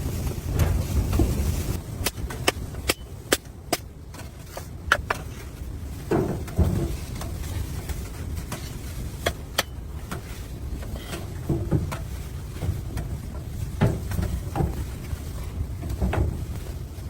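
Wind buffeting the microphone for the first two seconds, then a run of sharp clicks and snaps with a few duller knocks scattered through.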